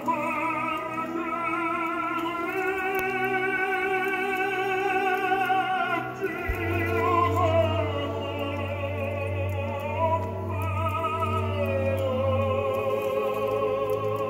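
Operatic singing with a wide vibrato over orchestral accompaniment, played back from tape on a Sony TC-366 reel-to-reel deck in a test playback after repair. Long held notes, with a low bass note sustained through the middle.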